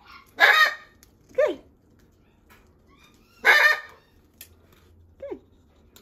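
Parrots calling: two loud, harsh squawks about three seconds apart, with short falling whistles in between.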